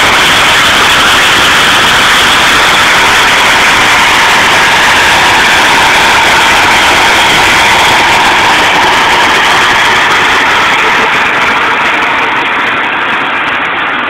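Deutz-Fahr M2685 combine harvester running at harvesting load, a steady dense machinery noise of engine and threshing gear, getting a little quieter near the end.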